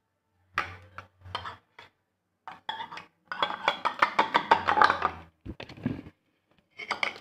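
Metal spoon clinking against the inside of a steel-lined mug as dalgona coffee mixture is stirred fast. A few scattered clinks come first, then a dense run of quick clinks lasting about two seconds, and a couple of dull knocks near the end.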